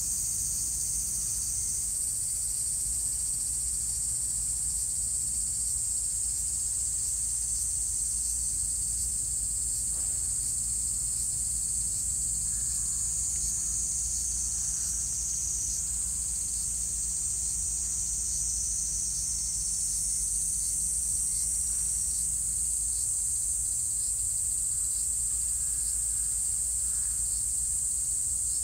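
A steady, high-pitched chorus of insects shrilling without a break.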